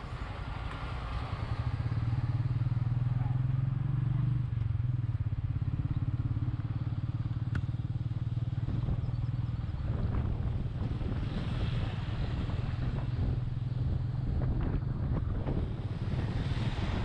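Royal Enfield Meteor 350's single-cylinder engine running steadily while riding. From about ten seconds in, short knocks and rattles join it.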